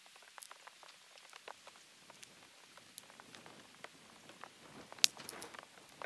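Small stick campfire catching, with irregular crackles and pops from the burning twigs and one sharp, louder snap about five seconds in.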